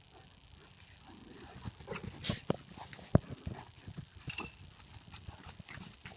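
Running footfalls thudding unevenly on grass, with a sharp knock about three seconds in.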